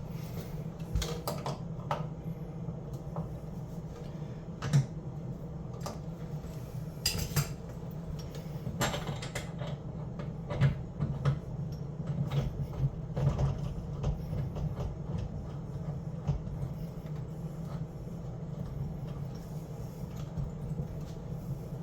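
Scattered light clinks and knocks of tools and fittings being handled during faucet plumbing work, over a steady low hum.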